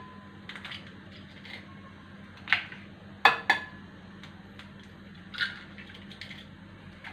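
Eggs being cracked on the rim of a glass mixing bowl: sharp taps, a close pair about three seconds in, each leaving the glass ringing briefly, with lighter clicks of shell in between.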